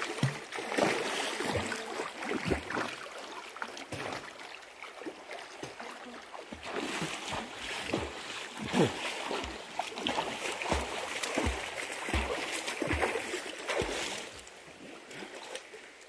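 A person swimming in a shallow pool: irregular splashing and sloshing of water from arm and leg strokes, dying down near the end.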